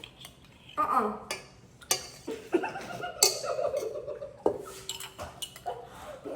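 A spoon or fork clinking and scraping against a bowl and container as softened butter is scraped out, with bursts of laughter.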